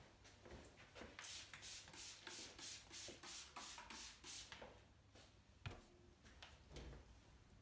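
Hand trigger spray bottle misting a product onto a car's hood: about a dozen quick, quiet spritzes in a row, roughly three or four a second, followed near the end by a single click.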